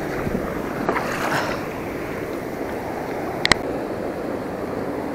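Steady rush of river current and wind around a small boat in tailwater below a dam. A single sharp click sounds about three and a half seconds in.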